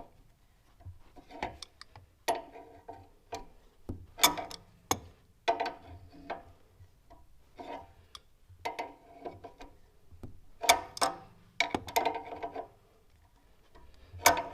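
Hand wrench working the threaded fitting of a Ford 4.6 L V8's new EGR tube: irregular metallic clicks and clinks in short clusters, some ringing briefly, as the fitting is tightened.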